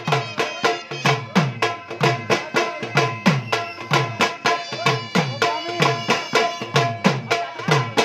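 Dhol drums played with sticks in a fast, steady folk dance rhythm of about four to five strokes a second, with a sustained melody line sounding above the beat.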